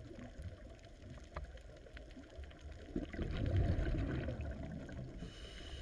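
Underwater ambience: a low water rumble with a few faint clicks, swelling about three seconds in.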